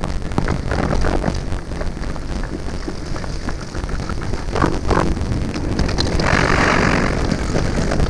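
Mountain bike rolling down a rocky trail: a steady low rumble of wind on the microphone, with the clatter and rattle of the bike over stones throughout. A louder hiss comes in about six seconds in and lasts about a second.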